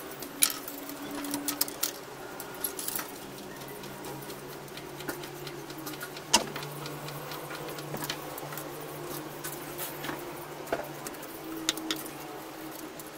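Aluminium antenna rods, plastic element brackets and pliers handled on a wooden table: scattered clicks and clinks as parts are fitted and set down, over a steady low hum.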